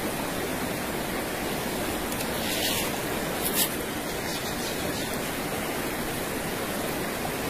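Shallow river running fast over stones in a riffle, a steady rushing of water. A short high hiss comes about three and a half seconds in.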